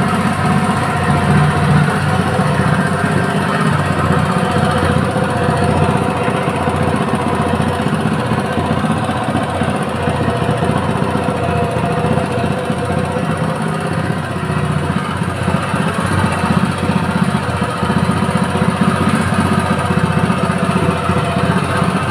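Honda GX200 single-cylinder four-stroke engine running steadily on LPG fuel.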